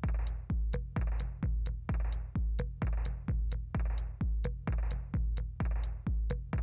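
Electronic background music with a steady beat: a deep kick drum about twice a second and crisp hi-hat ticks between.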